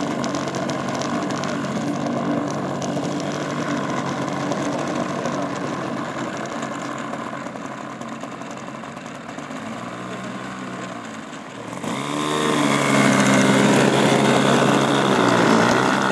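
Small piston engine of a radio-controlled trainer model airplane running with its propeller spinning while the plane taxis. About twelve seconds in it revs up, the pitch rising, and it runs louder and higher after that.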